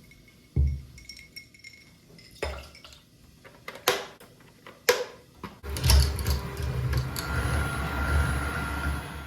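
Kitchen clatter of dishes and utensils, a few separate knocks and clinks, then from about six seconds in a steady rushing noise that lasts about three seconds.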